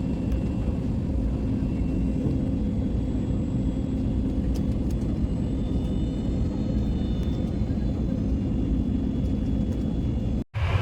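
Steady airliner cabin noise in flight: a constant low rumble of engines and airflow with a faint steady hum over it, cutting out briefly near the end.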